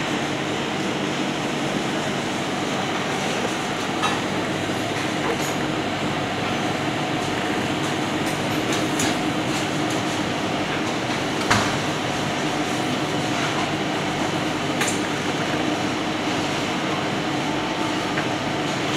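Steady loud rushing drone with a low hum, and a few light taps plus one sharper knock about halfway through from hands and a knife working on a plastic cutting board.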